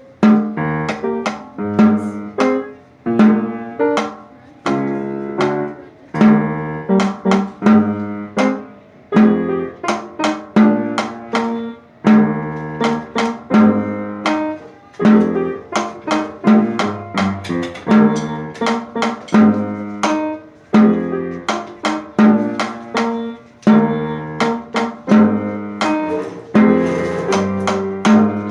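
Band music with drums playing a steady beat under pitched notes in short, sharply struck strokes, starting right on the count-off.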